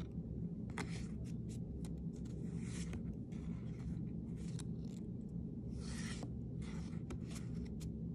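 Pokémon trading cards sliding against each other as they are flipped through by hand: a few short scraping swishes with light clicks of card edges, over a steady low hum.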